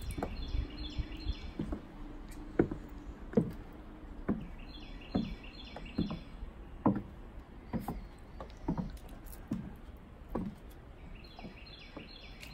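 High-heeled boots stepping on wooden deck boards, a sharp knock about once a second. A bird sings a short, high phrase three times behind the steps.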